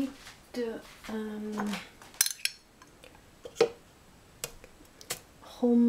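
A glass jar and a utensil clinking and knocking on a tiled counter: a handful of separate sharp clinks, between short stretches of a voice.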